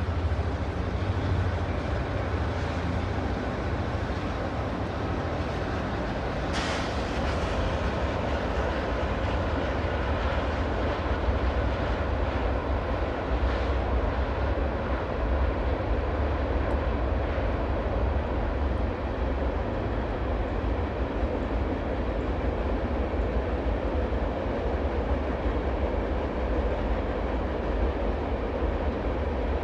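Several BNSF diesel locomotives at the head of a freight train pass with a steady low engine sound. Mixed freight cars follow, rolling over the rails.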